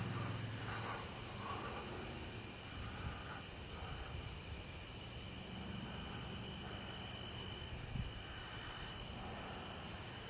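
Crickets chirping steadily in a night chorus, with wind noise on the microphone underneath and a single soft knock about eight seconds in.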